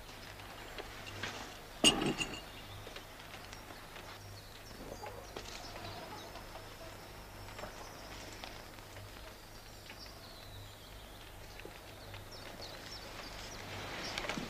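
A single sharp knock or bang about two seconds in, with a brief metallic ring after it, over a faint background.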